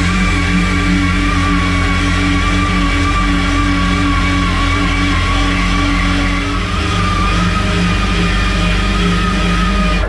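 Rock music with guitar, which cuts off abruptly at the very end.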